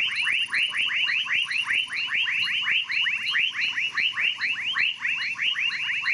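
A night animal calling without a break: a fast train of identical short rising notes, about seven a second.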